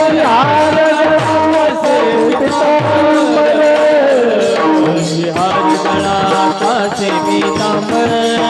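Marathi Varkari devotional bhajan music: long held melodic notes, with a hand drum whose bass strokes slide down in pitch and steady percussion beats keeping the rhythm.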